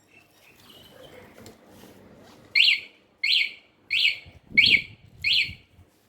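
Aftermarket motorcycle alarm siren on a Honda Forza 300 giving five short, identical chirps, evenly spaced about two-thirds of a second apart.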